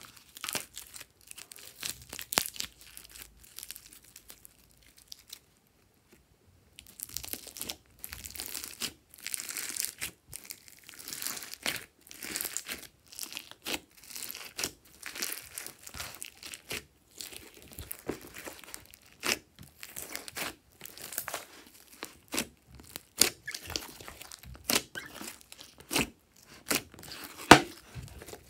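Hands squeezing and kneading glossy slime full of foam beads: irregular wet crackling and popping, broken by sharper snaps. There is a brief pause about five seconds in, and the loudest snaps come near the end.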